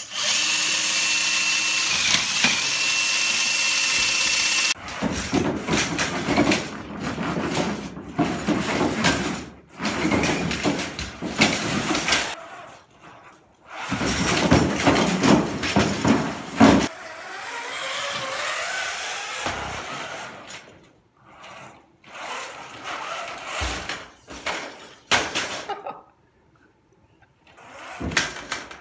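An FRC robot's electric motors at work. For about the first five seconds a motor runs steadily with a thin high whine. Then come several runs of drive motors whining and wheels knocking over plywood ramps, with short pauses between them.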